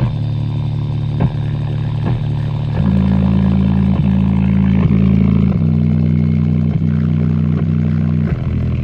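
JBL Xtreme 3 portable Bluetooth speaker playing deep bass notes at full volume. The bass steps to new pitches a few times, with sharp clicks and a rattling, engine-like buzz as its passive radiators are pushed past their travel, the sound of a damaged woofer.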